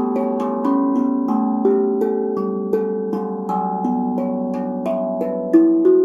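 BeatRise 13-inch, 15-note carbon-steel tongue drum played with mallets: an improvised run of single struck notes, about two to three a second, each ringing on and overlapping the next. One strike near the end is louder than the rest.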